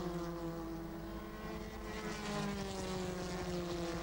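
Formula 3 racing car engines running at speed, the engine note falling slowly in pitch.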